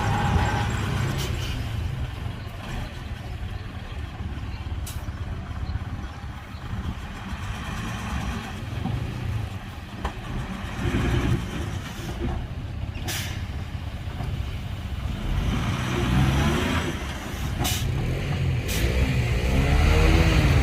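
Heavy diesel earthmoving machinery running with a steady low rumble, with a few sharp knocks over it.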